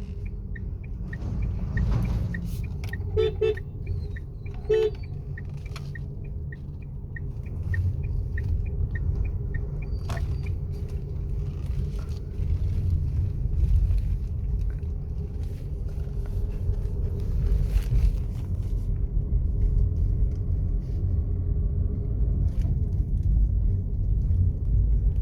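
Cabin noise of a Tata Altroz with the 1.2-litre naturally aspirated three-cylinder petrol engine, driving with the windows closed: a steady low engine and road rumble with a faint steady hum. A regular light ticking runs for the first ten seconds or so, and two short horn toots sound about 3 and 5 seconds in.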